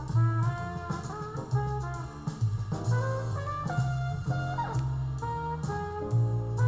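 Jazz music with horns, a moving bass line and drums.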